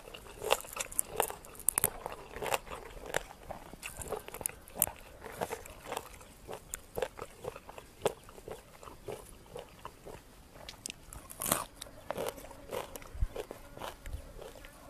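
Close-miked chewing of crunchy food: irregular crunches and wet clicks of biting and mastication, picked up by a clip-on microphone.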